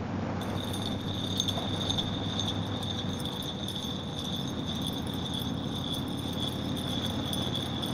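Steady Harley-Davidson motorcycle riding noise, a low engine and wind rumble. From about half a second in, a steady high-pitched jingling ring sits above it.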